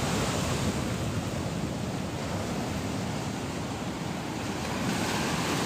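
Ocean surf washing onto a beach, a steady rushing noise, with some wind on the microphone.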